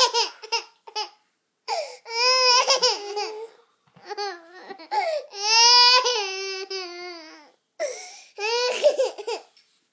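Toddler crying in a series of long, high-pitched wails that fall in pitch, with short breaks for breath between them: crying after a minor knock to the face.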